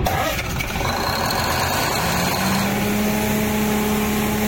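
A ship's emergency generator diesel engine starting. A noisy burst of cranking and firing comes first, then the engine note rises and settles into a steady run about two and a half seconds in.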